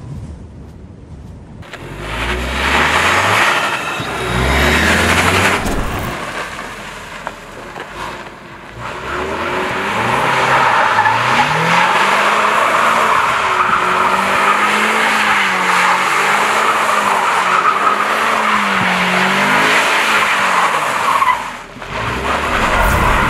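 Ford Mustang convertible doing donuts: the engine revs twice in quick succession, then is held high with its pitch rising and falling while the tyres skid continuously. The noise drops out briefly near the end.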